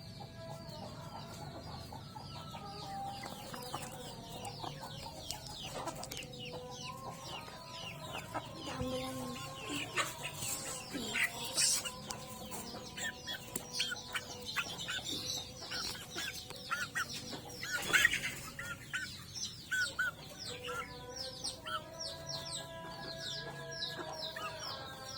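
Chickens clucking and calling, with many short high-pitched calls throughout and a few louder squawks near the middle. Steady held tones run underneath.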